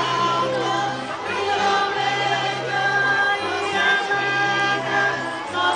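A group of voices singing together in chorus, a slow song with long held notes.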